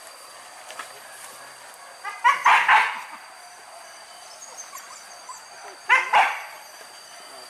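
Hunting dogs barking: a quick run of barks about two seconds in, then two more barks around six seconds.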